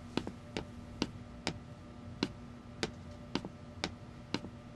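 A series of light, sharp clicks, about two a second and fairly evenly spaced, over a faint steady hum.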